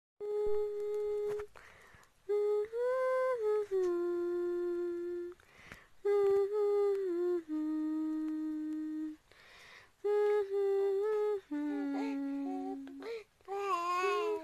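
A woman humming a slow, lullaby-like tune in short held phrases, each note steady and stepping down in pitch, with audible breaths between phrases. Near the end a baby's wavering vocalizing joins in.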